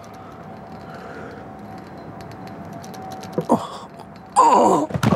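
A man grunting and groaning with effort while straining through pull-ups on a bar: a short strained grunt about three and a half seconds in, then a loud, longer groan falling in pitch near the end.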